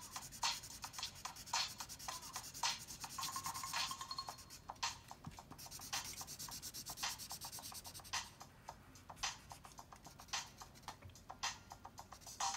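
Drawing on paper: many quick, short scratchy strokes, with a few stretches of steady back-and-forth scribbling.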